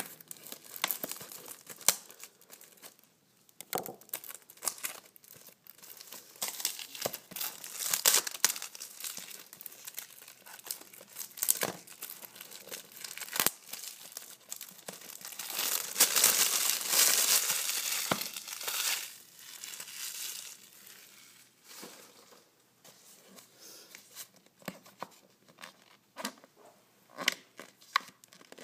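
Cellophane wrapping on a cigarette carton crinkling and tearing as it is unwrapped by hand, in irregular crackles and small clicks, with a longer, louder stretch of crinkling a little past halfway.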